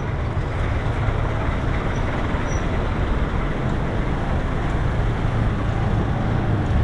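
City street traffic noise: a steady low engine rumble from vehicles close by, with the general hum of the road.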